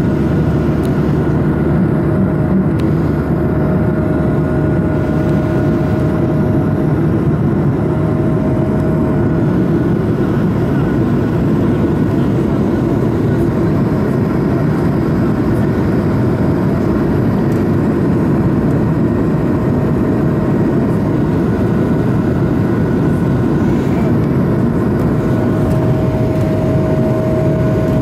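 Steady, loud cabin noise of an Airbus A220 climbing out after takeoff: its Pratt & Whitney PW1500G geared turbofan engines running at climb power, heard inside the cabin. Faint steady whining tones come and go over the drone.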